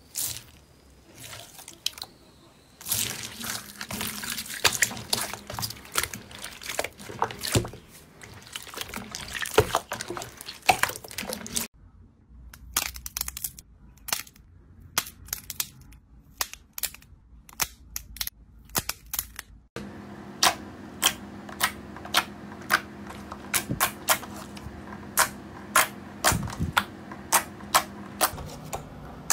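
Slime ASMR handling in three parts: a hand squishing and stirring a basin of wet jelly gel beads, with dense crackling and squelching. Then soft slime squeezed between the fingers, quieter, with scattered small pops. From about 20 s in, fingers press into glossy blue slime, popping trapped air in sharp clicks about twice a second.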